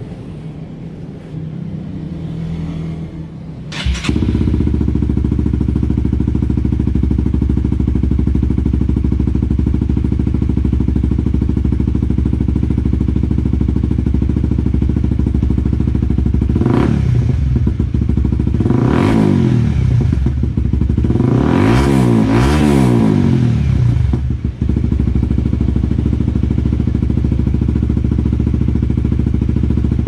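Honda CBR150R single-cylinder engine running loud through a carbon-fibre Yoshi RS5 slip-on exhaust. It settles into a steady idle about four seconds in, and around the middle the throttle is blipped three or four times, the revs climbing and dropping back each time.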